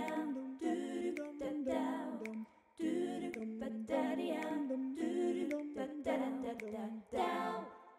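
A cappella outro jingle of humming voices in harmony, a short wordless melody sung in phrases a second or two long with brief breaks between them.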